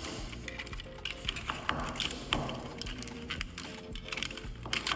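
Thin plastic support material being peeled and snapped off a 3D-printed orthosis: a scattered run of small cracks and clicks, over background music.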